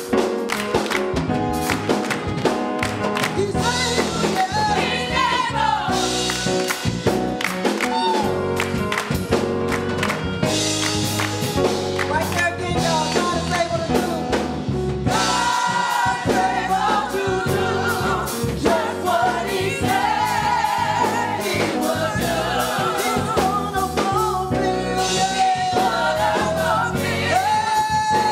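Gospel choir singing with keyboard accompaniment.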